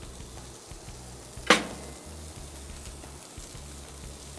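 Steady low sizzling of food cooking on a hot grill and pan, with one sharp click about a second and a half in.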